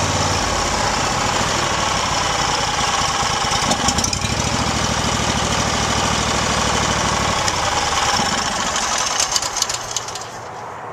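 Small gasoline engine running steadily, driving the wheels and blade of a homemade bandsaw mill. Near the end it turns uneven with a few rattling knocks and the sound drops.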